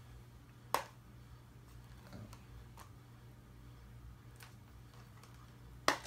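Plastic DVD case clicking as it is handled and opened: two sharp clicks, one about a second in and one near the end, with a few faint ticks between.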